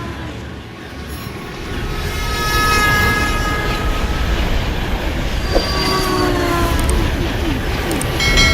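A train passing: a heavy low rumble with held horn-like tones and squealing wheels, building in level over the first few seconds, with some tones gliding down in pitch near the middle.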